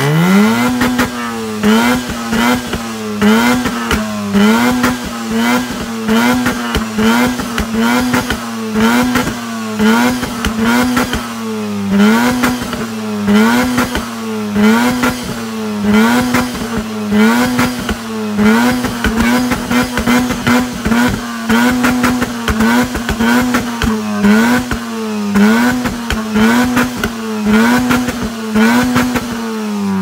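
Mazda RX-8's twin-rotor Wankel engine revved hard and held at high revs, the pitch dipping and climbing back about once a second, with a steady crackle of pops from the exhaust as it is revved to shoot flames. Right at the end the revs fall away.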